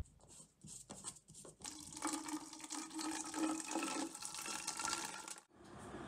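A sharp click, then a second or so of rustling, then water running in a steady rush that cuts off abruptly near the end.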